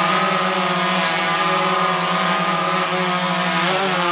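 DJI Phantom 3 Professional quadcopter hovering, its four propellers giving a steady multi-pitched buzzing hum as it turns on the spot. Near the end the pitch wavers briefly as the motors change speed.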